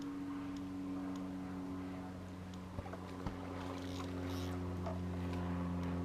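A hooked small ghost carp splashing at the surface about four seconds in, a brief splash over a steady low hum. Two sharp clicks come just before the splash.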